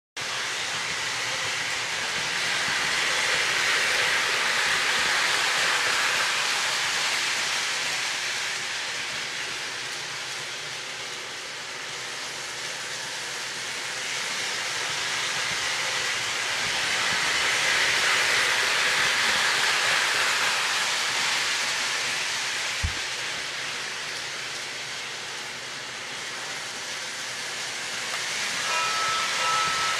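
O gauge model train, a Williams GP9 diesel pulling cars, running on three-rail track: a steady hiss of wheels and motor that grows louder twice as the train comes round toward the microphone and fades as it goes away. One sharp click late on.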